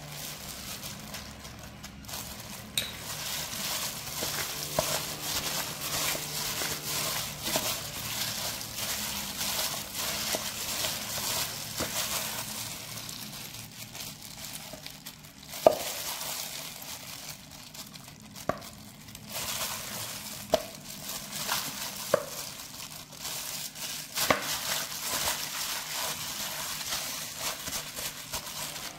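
Plastic-gloved hand mixing marinated chicken thighs with sesame seeds in an aluminium bowl: the glove crinkling and the wet meat squishing, with sharp clicks against the bowl now and then, the loudest about halfway through.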